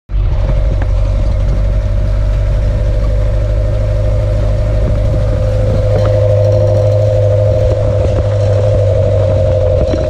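A 4x4's engine and drivetrain running at low speed on a rutted dirt track, heard from inside the cab: a steady drone with a steady whining tone above it, and short knocks and rattles from the body over the bumps.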